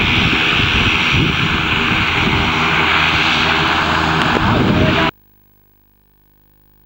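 Loud, steady engine drone with a rushing noise over it, cutting off suddenly about five seconds in.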